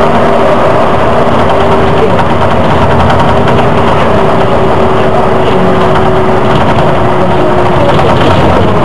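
Volvo Olympian double-decker bus running along the road, heard from inside: loud, steady engine and road noise. A whine in it slowly drops in pitch and fades out about eight seconds in.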